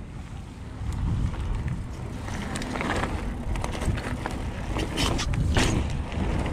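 Mountain bike ridden over a dirt trail: a steady low rumble of tyres and wind, growing louder about a second in, with scattered sharp clicks and rattles from the bike over bumps.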